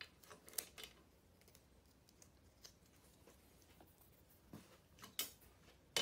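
Near silence, with a few faint clicks and rustles from wires and plastic connectors of an ATV wiring harness being handled, a cluster in the first second and a few more near the end.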